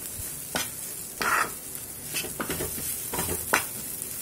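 A spatula scraping and stirring chopped cluster beans and ground masala in a frying pan, several irregular scrapes over a steady sizzle from the low flame.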